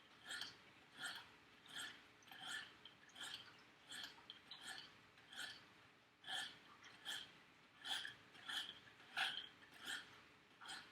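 Sharpening stone on a KME guided sharpener stroking along the blade of a Victorinox Huntsman pocket knife: faint, even scrapes, a little more than one a second.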